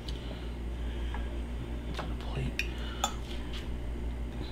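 A fork clinking and scraping against a ceramic plate while cutting into food: several short, sharp clinks spread out over a few seconds.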